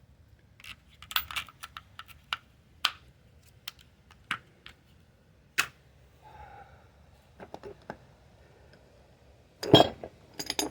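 Irregular sharp metallic clicks and light taps from hand tools working at a seized hub on a garden tractor, with a louder knock near the end.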